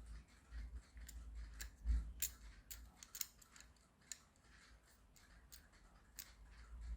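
Irregular sharp clicks and light taps of small parts being handled on a bench, densest in the first few seconds, with a low bump about two seconds in.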